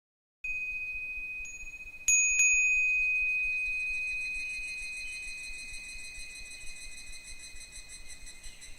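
Japanese furin wind bell ringing: a clear high bell tone that comes in abruptly, is struck lightly once and then twice sharply about two seconds in, and rings on, slowly fading, until it cuts off near the end.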